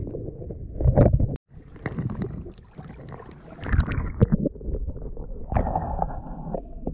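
Water sloshing and gurgling over the microphone of a camera held underwater in the sea, with uneven low rumbling. The sound cuts out for a moment about one and a half seconds in.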